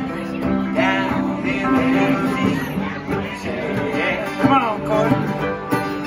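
Live country-bluegrass band playing an instrumental passage: a fiddle with sliding notes over strummed and picked guitars and mandolin.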